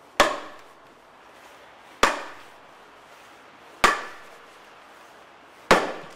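Four knocks of an iron-hooped wooden mallet striking the back of a splitting blade set in a larch block, one blow roughly every two seconds. Each knock rings briefly. The blows are splitting the block into pieces for larch roof shingles.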